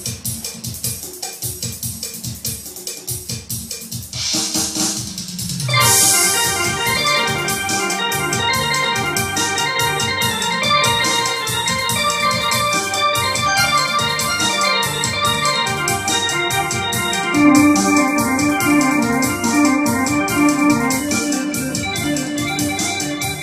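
Music played on a Korg electronic keyboard: a steady drum beat, a rising swoosh about four to six seconds in, then a busy organ-like melody over the beat.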